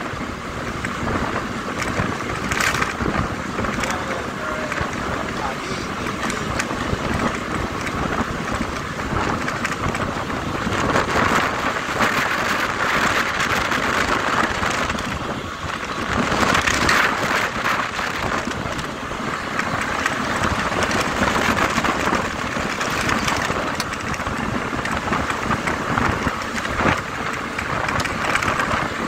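Steady road and wind noise from a bus driving at speed, heard through an open window, with the vehicle's engine running underneath.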